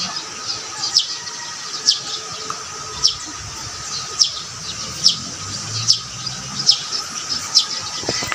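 A bird calling over and over, each call a short high chirp that falls in pitch, about once a second, over a faint steady high hum.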